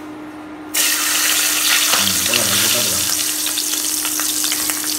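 Food frying in a large pan of hot oil: a loud, even sizzle full of crackles and pops that starts suddenly about a second in and carries on steadily.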